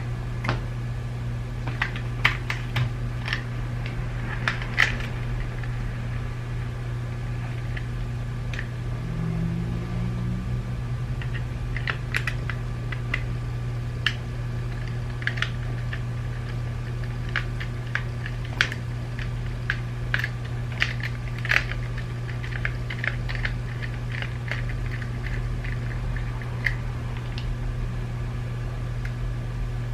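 Scattered small sharp clicks and taps, some in quick clusters, of the plastic parts of a BMW iDrive controller being handled and pried apart, over a steady low hum.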